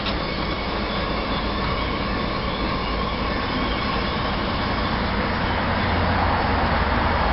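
Steady hiss of steam from a 7¼-inch gauge miniature steam locomotive standing in steam, growing a little louder and deeper about five seconds in.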